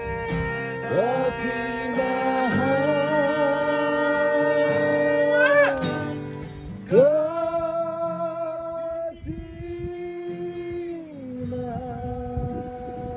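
A worship song: a voice sings long held notes, each sliding into pitch, over guitar accompaniment.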